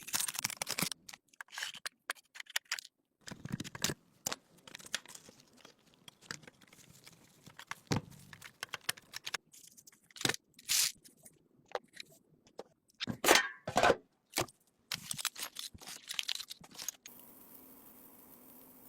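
Hand work on a rusty, abandoned car: irregular scraping, crunching and tearing noises with sharp clanks, coming in short snippets that start and stop abruptly. A steady hiss takes over near the end.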